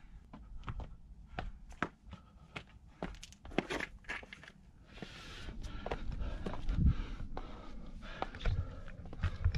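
A trail runner's footsteps on rocky scree and stony ground: sharp clicks and crunches of shoes on stone. About halfway through, a steady rushing noise comes in, along with heavier, closer thumps of steps.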